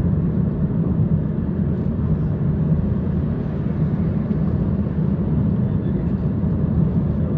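Steady low road and engine rumble of a moving car.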